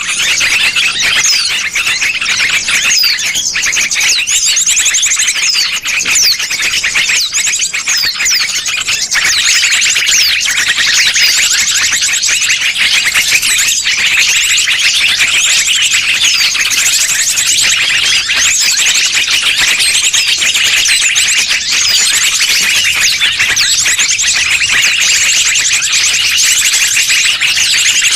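Bird-lure recording of many small birds calling at once: a dense, continuous chatter of rapid high-pitched chirps and trills, played to draw wild birds in.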